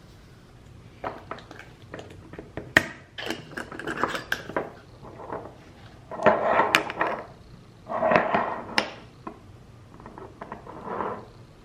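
Glass spice jars being handled: sharp clinks and knocks, with several short bursts of scraping noise, the loudest about six and eight seconds in.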